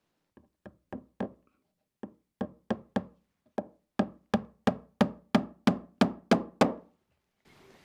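Small hammer driving tacks through leather into the wooden board of a hand-built bellows: a run of sharp taps, about three a second, light at first and growing harder, stopping shortly before the end.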